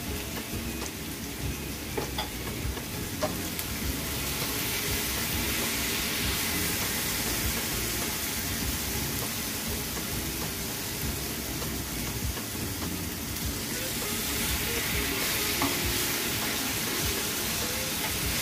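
Thinly sliced marinated beef sizzling in a frying pan as it is stirred with wooden chopsticks, with a few light clicks near the start. The sizzle grows louder about four seconds in.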